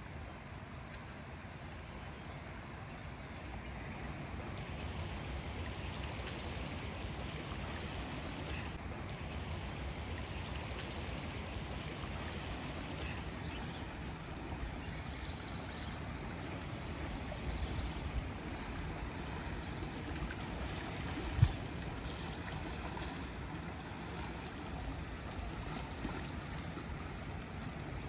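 River water running and trickling over rocks, a steady rushing noise, with one sharp thump about twenty-one seconds in.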